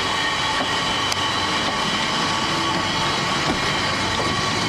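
Angels Flight funicular car rolling past on its rails: a steady running noise with a few light clicks.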